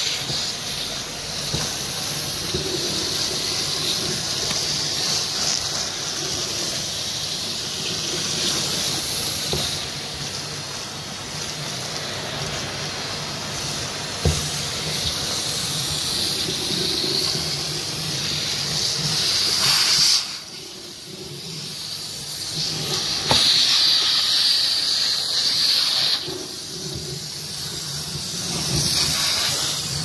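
Vacuum cleaner running, its bare metal wand sucking pine needles off a wooden floor: a steady, high rushing noise. It drops away for a couple of seconds about two-thirds of the way through, then comes back.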